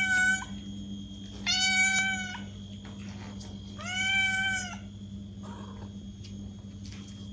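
Domestic cat meowing three times, each meow about a second long and about two seconds apart, over a steady low hum.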